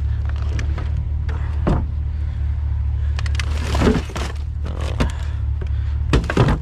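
Hands rummaging in a trash can for scrap metal: scattered knocks and clatters of items being moved, loudest about four seconds in and again near the end, over a steady low engine hum.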